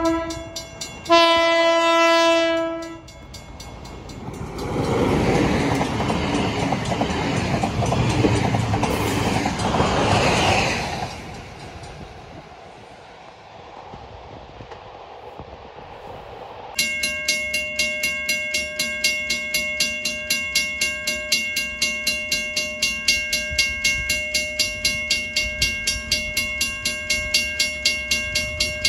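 A train sounds two blasts, the first cut short and the second about two seconds long, then passes with a loud rushing noise that dies away after about 11 seconds. Near the two-thirds mark a bell starts ringing steadily, struck about twice a second.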